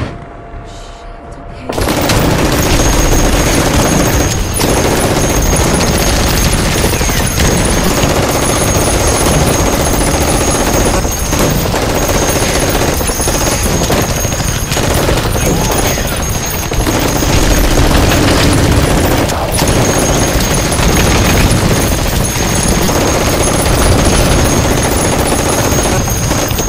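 Sustained loud gunfire, a dense rapid barrage that starts about two seconds in and keeps going, with a thin steady high tone above it.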